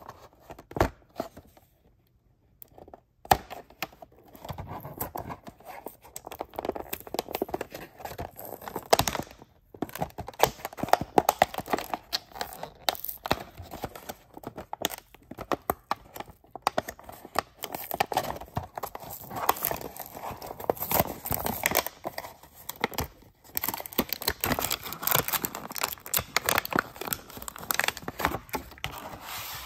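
Toy-car blister pack being handled and opened by hand: the stiff clear plastic blister crinkling and clicking and its cardboard backing tearing, in a dense stream of crackles with a short lull about two seconds in.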